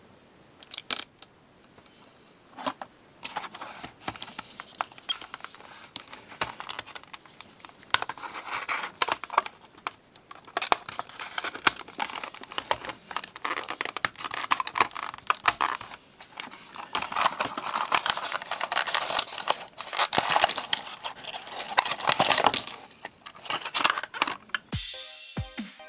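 Toy blister packaging being opened by hand: the cardboard card is cut and torn, and the clear plastic blister crinkles and crackles in irregular bursts. Electronic music with a beat starts near the end.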